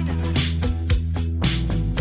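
Music with a steady, fast beat and a bass line, in a funk style.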